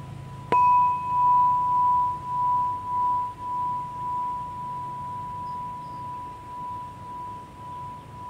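A homemade tuned metal tube chime, tuned to B5 (about 991 Hz), struck once about half a second in and ringing on with one clear tone that pulses in loudness as it slowly fades. A fainter higher overtone dies away after a couple of seconds.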